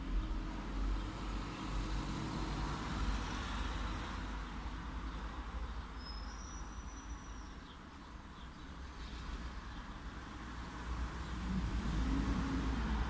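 Light road traffic: a steady low rumble of vehicles passing, easing off a little partway through and swelling again near the end as an engine comes closer. A short high whistle sounds about six seconds in.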